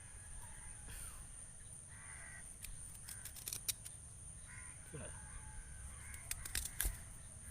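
Crows cawing several times in the background, with bursts of short sharp scraping clicks as a small spoon scrapes thin shavings of coconut flesh for fish bait.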